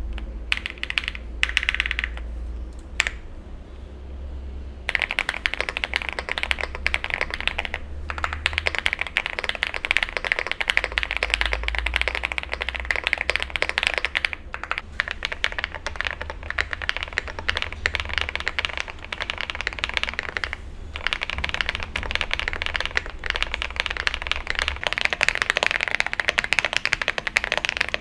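Typing on mechanical keyboards with lubed switches. A few separate keystrokes come first, then fast, continuous clacking from about five seconds in, with a short pause about three quarters of the way through.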